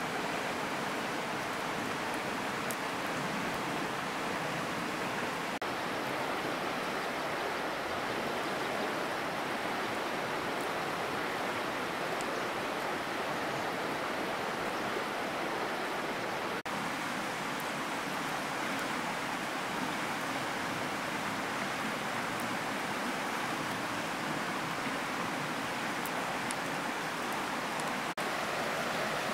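Steady rushing water with an even, unbroken hiss that cuts out for an instant twice.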